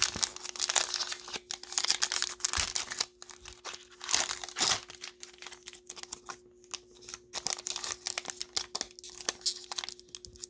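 Cellophane wrapper of a trading-card cello pack crinkling and tearing, with cards handled in irregular rustling bursts.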